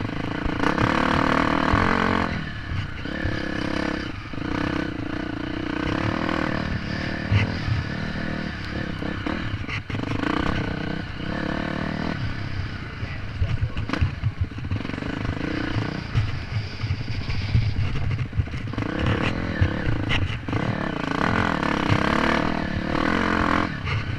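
Dirt bike engine heard from a camera on the rider, revving up and easing off as it rides a dirt race track, loudest about a second in and again near the end. Short knocks and rattles come from the bike over the bumps.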